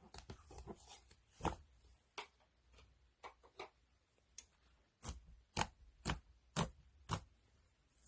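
Crunchy clear slime being pressed and squeezed by hand, crackling and popping in sharp clicks. A loud pop comes about a second and a half in, and a run of five loud pops about half a second apart in the second half.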